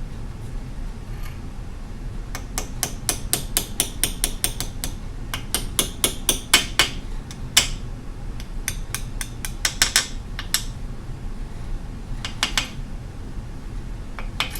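Tool striking metal: quick runs of sharp metallic taps, about five a second, starting about two seconds in, with short pauses between the runs and a few last taps near the end.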